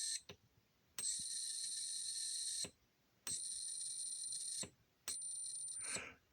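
Electronic buzzer in a 555 timer circuit sounding a steady high-pitched buzz tone, switched on and off by a push button: one burst ends just after the start, then three more of one to two seconds each, starting and stopping abruptly.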